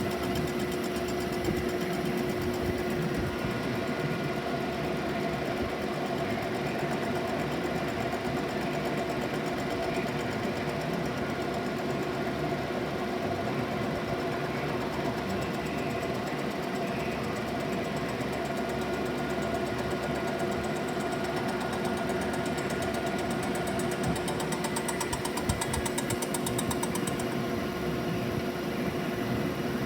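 DeVlieg machine tool running steadily while machining an exhaust manifold: a constant mechanical hum with several fixed tones held throughout.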